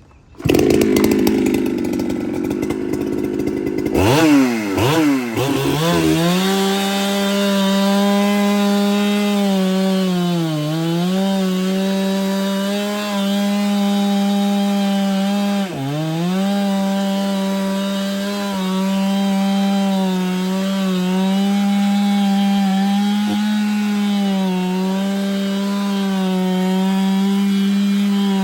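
Ported Husqvarna 395 two-stroke chainsaw running at full throttle through wood. After a few seconds of rough noise, the engine pitch sweeps up and holds steady and high, sagging briefly twice as the saw loads down in the cut.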